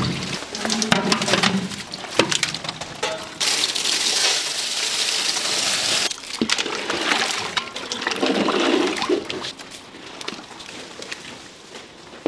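Running water gushing in a loud stream for a few seconds, with scattered knocks and clatter before and after.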